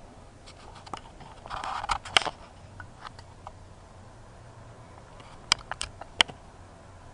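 Handling noise: a brief rustle and a sharp click about two seconds in, then a quick run of sharp clicks about five and a half seconds in.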